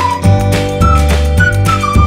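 Instrumental background music: a single-line melody over a bass line whose notes change about every half second.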